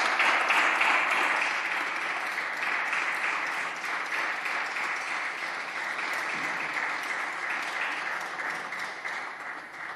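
Applause from deputies clapping in their seats. It dies away slowly and stops near the end.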